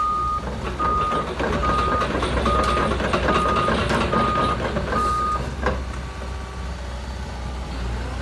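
Doosan DX140LC crawler excavator's travel alarm beeping, seven steady single-pitch beeps a little under a second apart that stop about five seconds in. The excavator's Perkins four-cylinder diesel engine runs steadily underneath.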